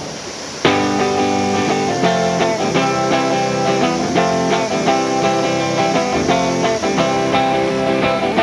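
Background music of plucked strings, starting suddenly under a second in after a brief moment of steady noise.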